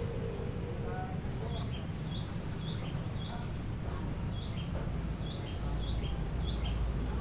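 A bird chirping over and over: short high whistled notes that step down in pitch, heard over a steady low rumble that grows louder past the halfway point.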